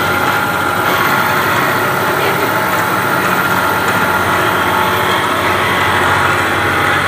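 Webb 3-horsepower milling machine running its spindle on a VFD, an end mill skimming the top face of an aluminum block. It makes a steady, even noise with several constant tones running through it.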